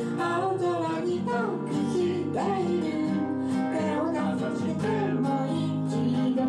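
Intro music with guitar.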